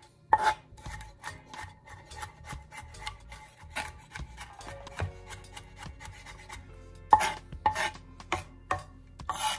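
Kitchen knife chopping garlic on a cutting board: a quick, even run of strokes, about five a second, with a few harder knocks about a second in and near the end.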